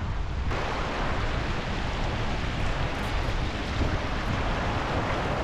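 Shallow mountain stream rushing over boulders close by, a steady hiss of water that comes up fuller about half a second in, with wind rumbling on the microphone underneath.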